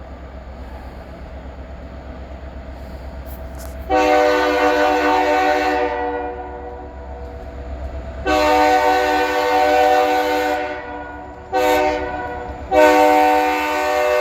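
Diesel freight locomotive's horn blowing the grade-crossing signal: two long blasts, a short one, then a long one starting near the end. Under it is the low rumble of the locomotive's engine powering up, growing louder during the first few seconds.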